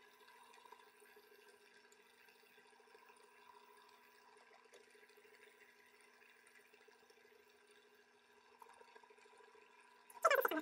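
Wood lathe running steadily with a faint hum while a micromesh sanding pad is held against the spinning pen blank. Just before the end comes a short, loud burst lasting about a third of a second.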